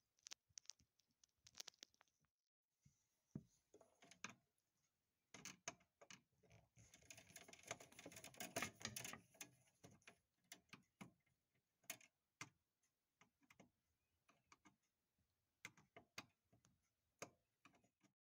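Faint handling noise: scattered small clicks and rubbing, with a longer stretch of scraping rustle in the middle.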